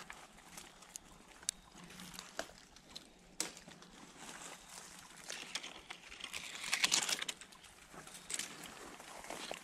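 Dry leaf litter and pine bark rustling and crackling as someone shifts around a tree trunk, with a few sharp clicks and a louder burst of rustling about seven seconds in.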